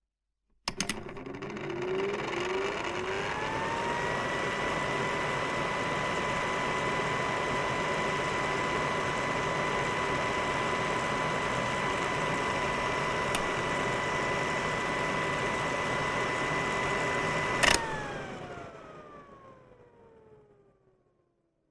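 Hair dryer switched on with a click, its motor whine rising over the first few seconds to a steady pitch above the rush of blown air. It runs steadily, is switched off with a click near the end, and the whine falls as the motor spins down and the air noise fades away.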